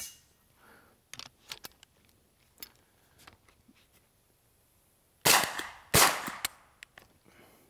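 A few light metallic clicks of the carbine being handled, then two shots from a Wilson Combat AR9-G 9mm carbine about two-thirds of a second apart, after which the gun stops on another failure to feed.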